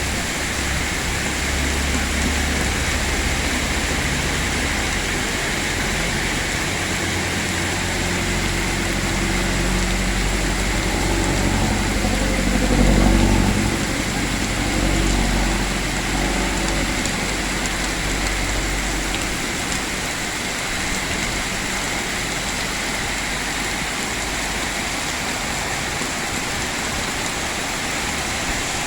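Heavy rain falling steadily. A low rumble runs underneath, builds to its loudest about halfway through and fades out about two-thirds of the way in.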